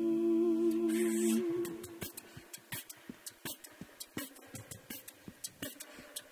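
A cappella voices hold a chord, the top note wavering, and stop about two seconds in. A beatboxer then carries on alone with a steady vocal drum beat of clicks, snares and hi-hat hisses.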